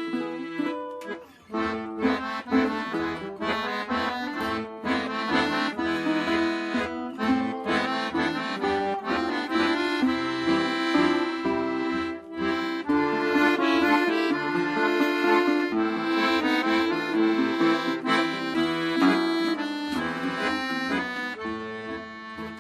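Instrumental break of an acoustic folk song: an accordion plays the melody over a steady rhythmic accompaniment, with no singing.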